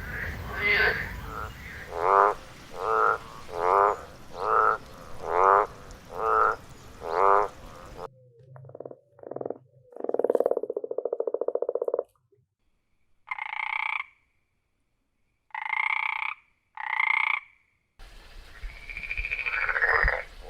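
Frogs calling in several spliced recordings. First a steady series of short croaks, a little under one a second. About eight seconds in it cuts to a few short calls and then a long buzzing trill. After that come a few spaced, higher two-toned calls against a silent background, and near the end another frog croaking.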